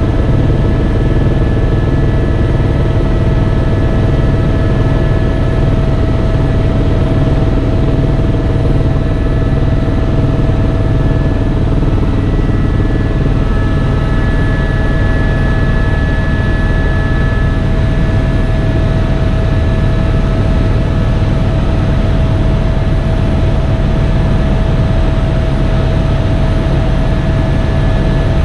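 Tour helicopter in flight: its rotor and turbine engine running steadily, a loud low rumble with a steady high whine over it.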